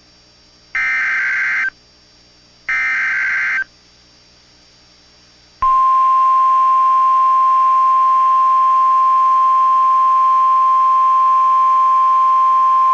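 NOAA Weather Radio emergency alert signalling: the last two of three one-second bursts of SAME digital header data, a second apart, then after about two seconds of quiet the steady 1050 Hz warning alarm tone starts. Together they announce a tornado warning.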